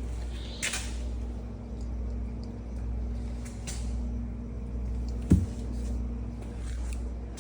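A steady low mechanical hum, with a single sharp thump about five seconds in.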